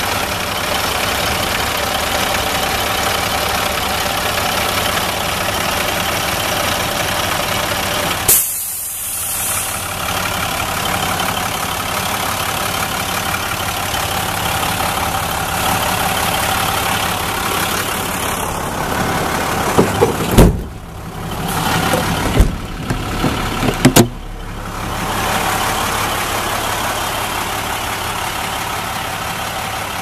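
Diesel engine of a 1999 International 3800 school bus idling steadily, heard up close at the open engine bay. A sharp click comes about eight seconds in, and a cluster of loud knocks comes about twenty to twenty-four seconds in.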